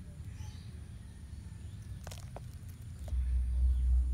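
Outdoor ambience with a low rumble that swells about three seconds in, and a few faint clicks.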